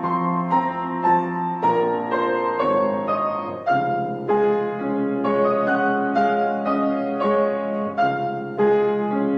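Background piano music, a steady run of single notes over a sustained lower part.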